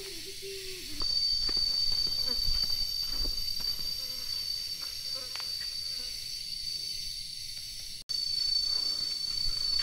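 Insects in the hills giving a steady, high-pitched, unbroken drone that swells in about a second in, with faint scattered ticks and rustles underneath.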